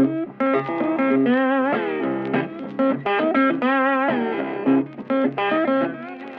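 Background music: an electric guitar plays a melodic line of changing notes, some bent and wavering.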